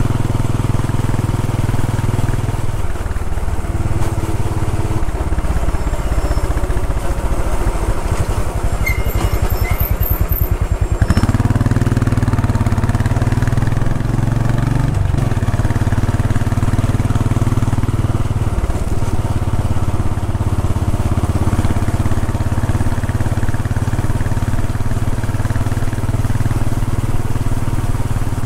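Royal Enfield Bullet 500 EFI's single-cylinder engine running under the rider, heard from the bike: for several seconds it turns over slowly with separate thumps, then pulls harder and fuller about eleven seconds in as the throttle opens.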